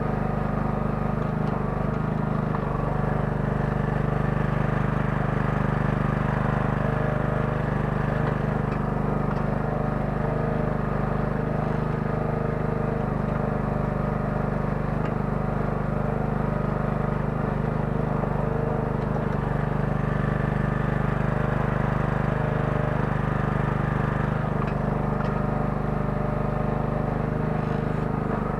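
The 9 hp engine of a small Kellfri towable mini excavator running steadily under work, heard from the operator's seat.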